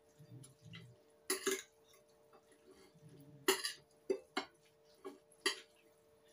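Metal cutlery clinking against a ceramic plate while noodles are tossed and lifted: about seven short, sharp clinks spaced irregularly, over a faint steady hum.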